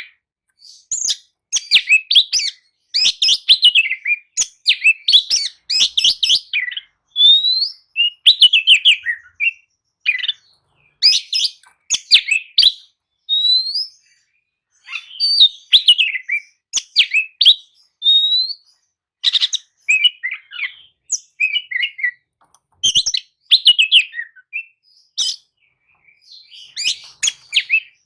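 Oriental magpie-robin (kacer) singing a loud, varied song of whistles, sliding notes and harsh chattering phrases, in bursts separated by short pauses.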